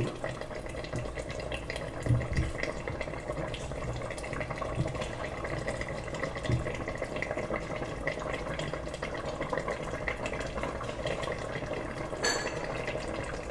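Tagine sauce with cracked green olives simmering in a metal pot, a steady fizz of small bubbles and pops. A brief clink near the end.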